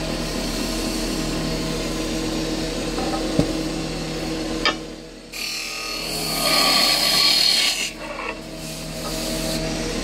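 Wood lathe running with a steady motor hum while a tool scrapes against the spinning wood. The scraping grows louder and hissier for a couple of seconds after a short lull midway.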